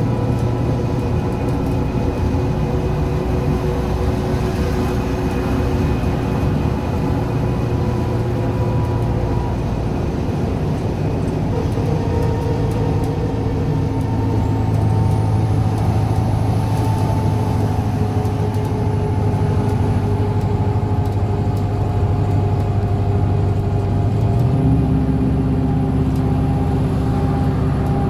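New Flyer D60LF articulated diesel bus heard from inside the passenger cabin while cruising on a highway: a steady engine drone over tyre and road noise. The engine note steps up in pitch near the end.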